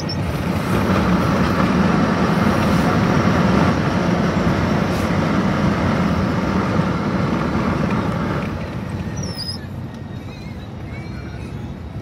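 Steady rushing road and wind noise from a car driving fast alongside a freight train. It eases off about eight and a half seconds in.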